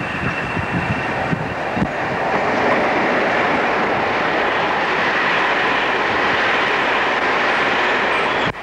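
Freight train of covered wagons running past close by, the steady rumble of its wheels on the rails building over the first couple of seconds and then holding. The sound cuts out briefly near the end.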